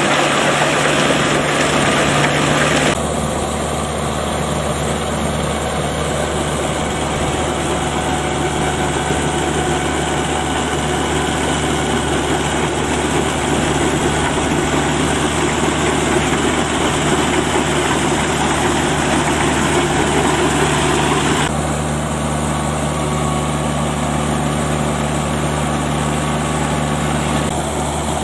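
Shibaura tractor's diesel engine running steadily while the tractor pulls a disc levee-building attachment through a flooded rice paddy. The sound changes abruptly about three seconds in and again a few seconds before the end.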